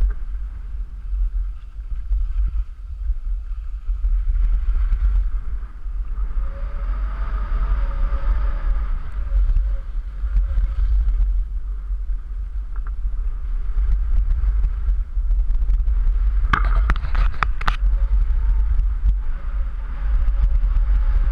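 Wind buffeting the microphone of a camera carried by a skier on the way downhill, under a hiss of skis sliding on snow. About three-quarters of the way through there is a short burst of scraping and clattering.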